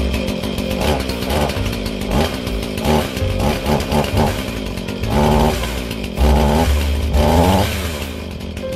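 Husqvarna two-stroke chainsaw running at idle to warm up after starting, its engine pitch rising and falling back several times.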